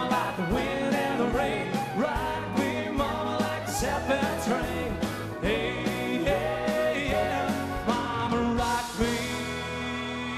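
Live country-rock band playing, with singing over a steady beat of drums and bass.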